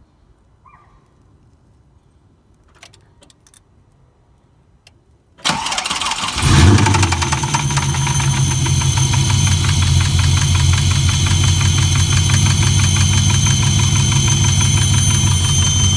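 GM LS1 5.7-litre V8 cranked and started about five seconds in, catching with a brief rev before settling to a steady idle. Through the idle runs a fast, even knock, which the owner suspects is either rod knock or a collapsed lifter.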